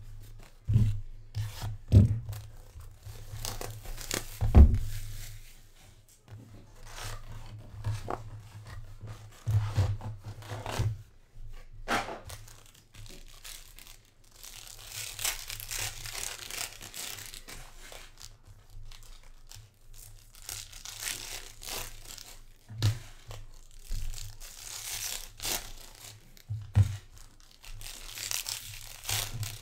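Foil trading-card packs being torn open and crinkled by hand, with cards rubbing and clicking as they are handled. A few dull thumps come in the first few seconds, and a steady low hum runs underneath.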